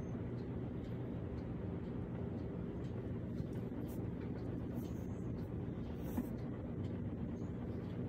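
Steady running hum of a Cuisinart DCC-450BK drip coffee maker mid-brew, with faint scattered clicks, drawing about 537 watts from a portable power station.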